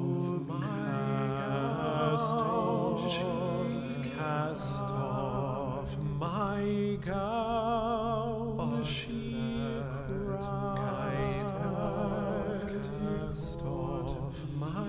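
A voice singing slow held notes with wide vibrato, broken by short pauses, over a steady low drone.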